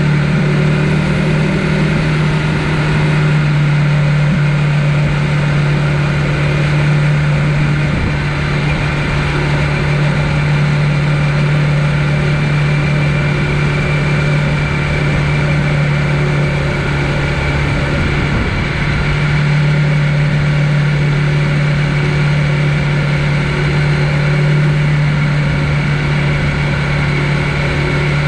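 Steady riding noise from a Conway EMC 529 electric mountain bike in motion: a loud, constant low hum with an even rushing noise over it, wavering briefly about two-thirds of the way through.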